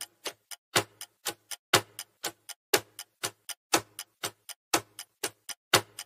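Countdown timer sound effect: clock-like ticking, about four ticks a second with a louder tick about once a second, marking the time left to answer a quiz question.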